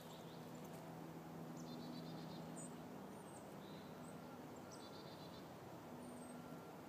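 Faint outdoor ambience: small birds giving scattered high chirps and two short rapid trills, over a low steady hum.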